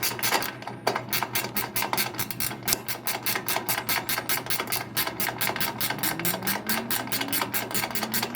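Socket ratchet clicking rapidly and evenly, about seven clicks a second, while it tightens the belt tensioner nut on a zero-turn mower.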